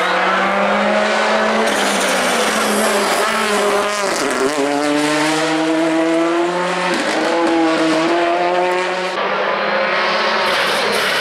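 A Ford Fiesta rally car's engine at high revs. The note drops sharply about four seconds in as the car brakes and shifts down for a bend. It then climbs again as the car accelerates out through the gears, with another gear change about seven seconds in.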